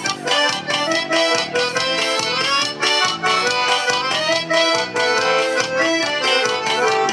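Forró band playing an instrumental break led by the accordion (sanfona) melody over a steady, quick percussion beat.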